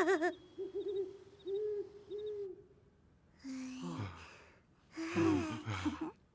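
Cartoon sound track: a run of short, wavering hoot-like tones at one pitch, then two noisy vocal sounds that slide down in pitch, about three and a half seconds in and about five seconds in.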